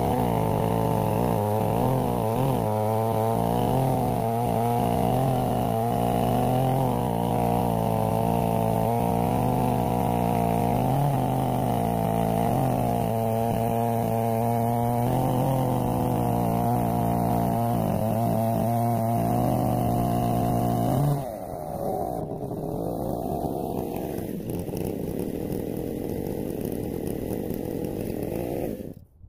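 Stihl 070 two-stroke chainsaw on a Granberg Alaskan chainsaw mill, running steadily at high revs while milling a black walnut log. About 21 seconds in, the steady engine note stops abruptly, leaving a quieter, rough noise.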